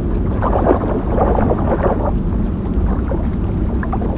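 Underwater ambience on a nature documentary soundtrack: a steady low rumble with irregular swishing swells on top.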